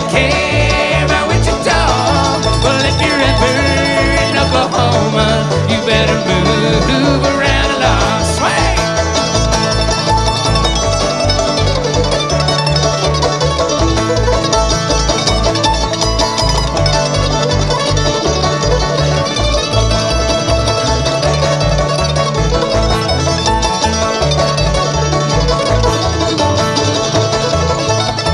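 Bluegrass string band playing live: banjo picking over guitar, with a steady, even bass line underneath.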